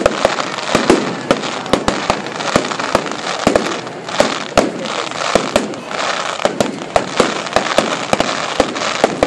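Fireworks going off in a dense barrage: many sharp bangs and crackles each second, without a break.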